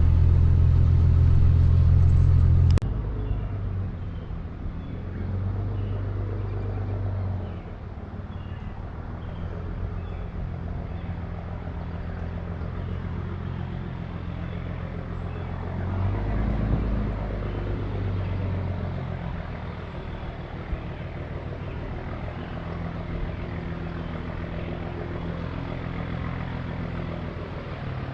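A vehicle's engine running while driving, a steady low drone. It is loudest for the first few seconds, then drops suddenly with a click about three seconds in and runs on more quietly.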